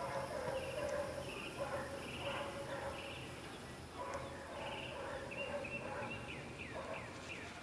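Birds chirping: repeated short buzzy trills, then a quick run of downward-slurred chirps in the last couple of seconds.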